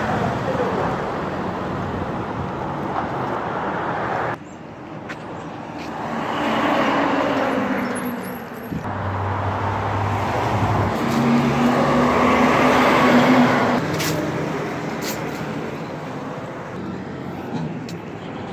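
Street traffic: cars and trucks driving past, their engine hum and tyre noise swelling and fading as each vehicle passes. The level drops suddenly about four seconds in, and the loudest pass comes after the middle.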